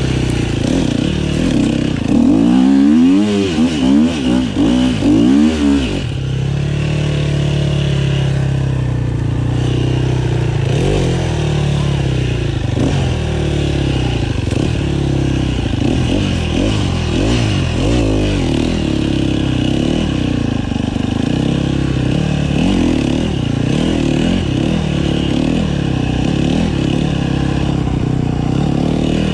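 KTM SX-F 250 dirt bike's four-stroke single-cylinder engine, ridden off-road: a run of quick throttle blips for the first few seconds, then running on with the revs rising and falling.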